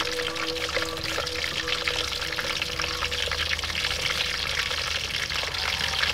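Pieces of fish frying in hot oil in a large steel wok: a steady sizzle full of fine crackles and pops.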